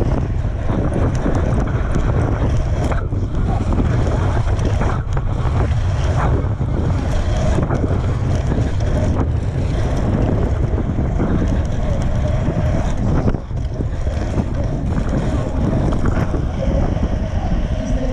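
Wind buffeting the microphone of a BMX racer's GoPro at race speed: a steady, loud low rumble.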